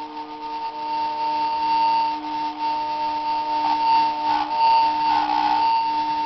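Buddha Machine loop player's built-in speaker playing a steady ambient drone of several held tones, with a few brief noisier sounds over it in the middle.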